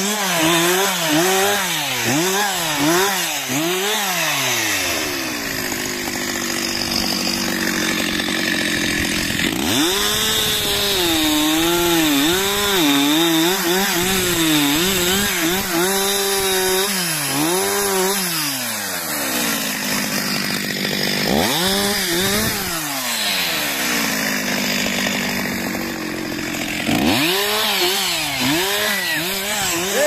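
Stihl MS 361 two-stroke chainsaw cutting wood at high revs. Its engine pitch dips and recovers over and over under load, and rises sharply again several times.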